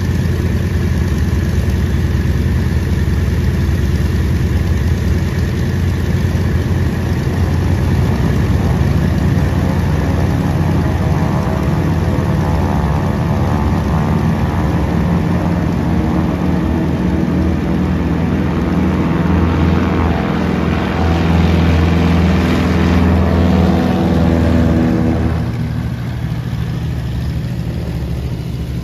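Twin radial engines of a Douglas C-47-type transport running, then throttled up: the pitch rises and the sound grows louder, loudest near the end. It drops abruptly to a quieter, lower steady engine sound shortly before the end.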